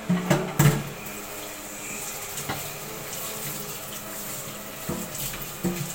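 Water running steadily from a kitchen tap into a sink, with a few sharp knocks of a knife and cutting board being handled, the loudest in the first second.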